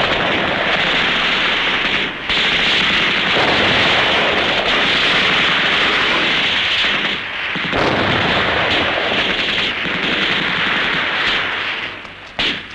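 Explosion and sustained heavy gunfire, a dense continuous din that eases briefly about two seconds in and dies down near the end, on an old film soundtrack.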